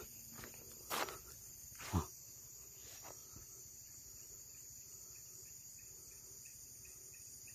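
Steady high-pitched chorus of crickets and other night insects. Two brief louder sounds break in about one and two seconds in: a sharp click, then a short sound that falls in pitch.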